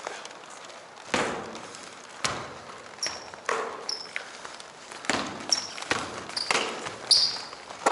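A basketball bouncing on a hardwood gym floor, single bounces about a second apart, each echoing in the large hall, with brief high squeaks of sneakers between them.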